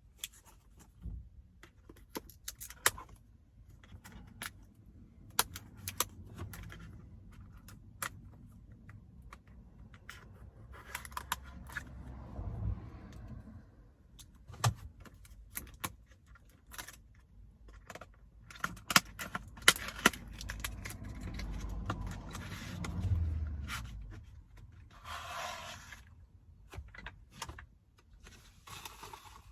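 Packaging being opened and handled: scattered clicks and taps of a small box and its contents, with a couple of short rustling, crinkling stretches of paper or plastic.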